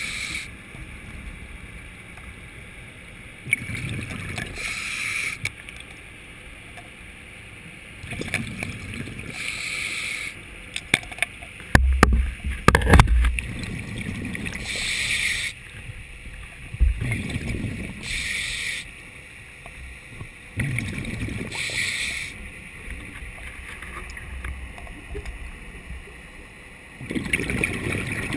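Underwater breathing through a diving regulator: a hiss with each breath and a rush of exhaled bubbles, repeating about every four to five seconds. A cluster of loud, sharp knocks and thumps comes a little before halfway.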